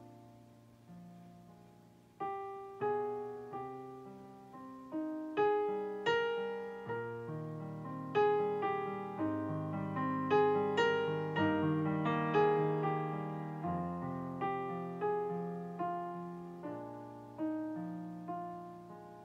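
Slow piano music: single notes and chords struck and left to ring away, growing fuller through the middle and thinning again near the end.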